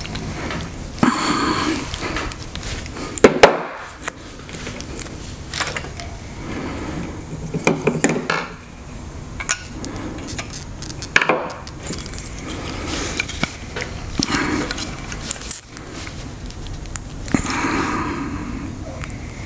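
Screwdriver scraping and prying at lithium-ion cells wedged in the plastic cell holder of a Ryobi 40 V battery pack, with irregular clicks and clattering as the holder is handled. Two sharper knocks stand out, one about three seconds in and one just past the middle.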